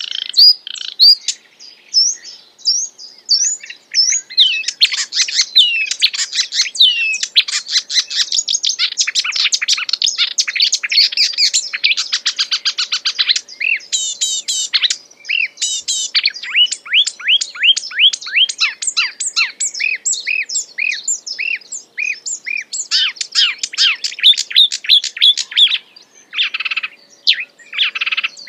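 Wild songbird singing non-stop, a fast-changing medley of sharp chirps, rapid trills and runs of downslurred whistles: the lively 'gacor' song with a full 'isian' of mimicked phrases.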